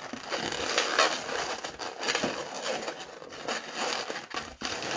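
Inflated pink 260 latex modelling balloon being twisted and locked into bubbles by hand, the latex rubbing against itself and the fingers in a steady run of rubbing and crinkling noise with a few sharper clicks.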